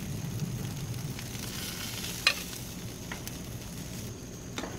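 Chicken wings sizzling on hot aluminium GrillGrates over a gas grill, a steady hiss. A few sharp clicks come as tongs lift the wings off, the loudest a little over two seconds in.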